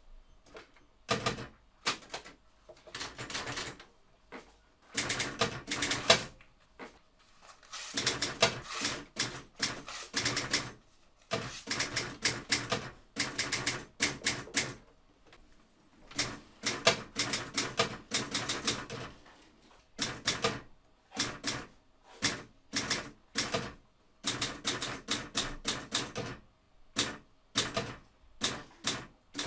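Typewriter being typed on: runs of rapid key clicks in bursts of a second or two, broken by short pauses.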